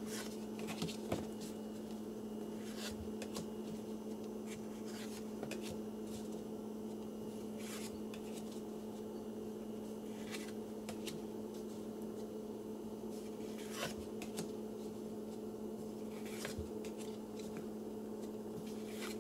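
Trading cards being slid off a hand-held stack one at a time, a faint soft swish or rub every second or two, over a steady low hum.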